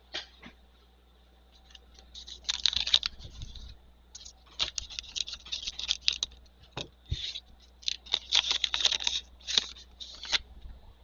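Trading cards being slid over one another and flicked through by hand: a run of short, dry scraping rasps in three bursts, with a few single clicks between.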